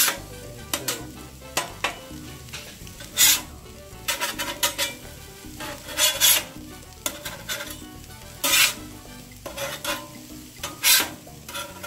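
Metal spatula scraping and clinking on the steel top of a Blackstone 22-inch griddle as slices of French toast are lifted and moved, over a steady frying sizzle. The scrapes come at irregular moments, about a dozen in all, some in quick clusters.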